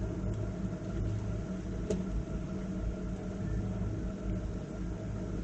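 A steady low mechanical hum with a constant drone, like an engine running, and one faint click about two seconds in.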